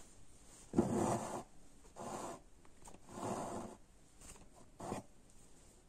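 Embroidery thread being pulled through fabric held taut in a hoop: three short scratchy pulls about a second apart, the first the loudest, then two fainter ones near the end.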